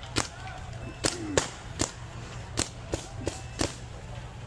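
Paintball markers firing single shots at irregular intervals, about seven sharp cracks over a few seconds.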